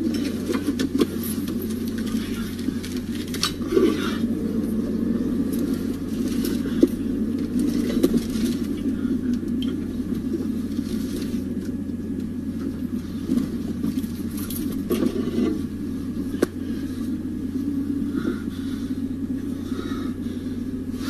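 A car's steady engine and road rumble heard inside the cabin while driving, with scattered knocks and clicks.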